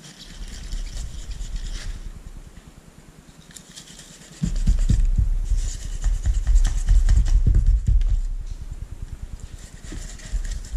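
Kitchen knife sawing and hacking through the tough fins and spines of a large raw fish head on a plastic cutting board. A loud run of rapid low knocks and thuds with scraping starts about four seconds in and lasts about four seconds.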